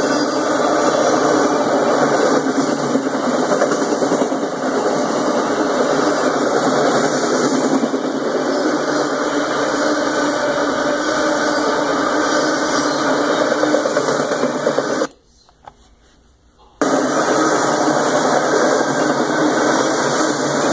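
Autorack freight cars rolling past, their steel wheels running over the rails in a steady loud clatter. It cuts out to near silence for about a second and a half, some fifteen seconds in, then comes back.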